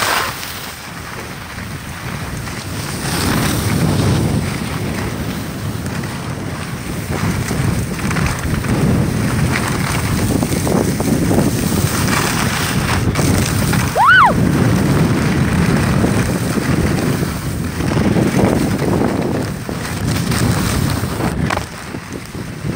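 Wind buffeting the microphone over the scrape of skis sliding on packed snow, with one short high chirp that rises and falls about fourteen seconds in.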